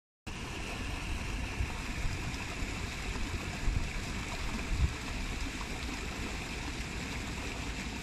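Steady rush of running water, like a stream spilling over steps, with a few brief low bumps near the middle. The sound cuts out for a moment right at the start.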